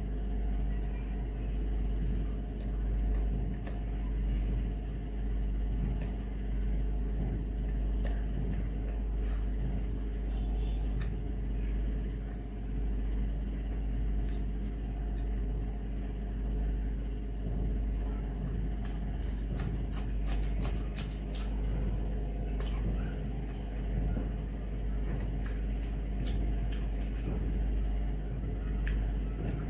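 Hand-eating sounds: fingers mixing rice on a metal plate and chewing, heard as scattered clicks that cluster about two-thirds of the way through. Underneath runs a steady low rumble with a constant hum.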